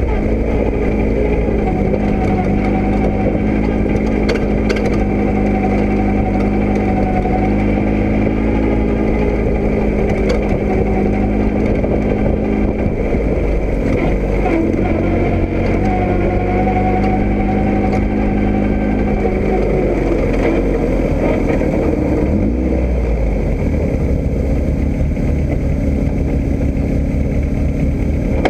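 Motor vehicle engine running under a steady drone of travel noise, its hum shifting in pitch now and then as the engine speed changes.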